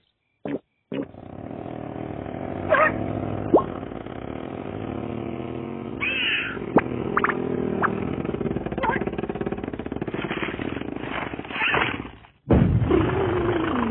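Cartoon sound effects: a long, steady rattling buzz with short squeaks and whistles over it, then a brief break and a falling tone near the end.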